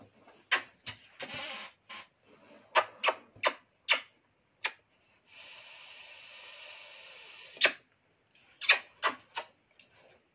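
A person giving a dog a string of quick smacking kisses, about a dozen short smacks. In the middle there are a couple of seconds of steady rustling as her face and fleece rub against the dog's fur in a hug.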